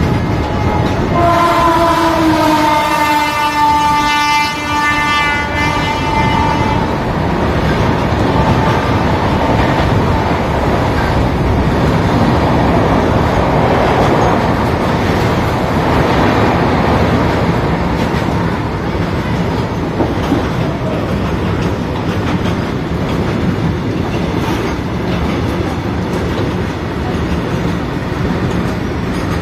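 Goods train of open hopper wagons rolling past, a steady rumble and clatter of wheels on rail. About a second in, a train horn sounds for roughly six seconds, several tones together.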